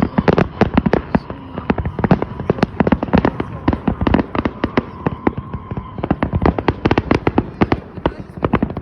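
Fireworks display: a rapid, irregular barrage of bangs, several a second, with a thin steady tone until about six seconds in.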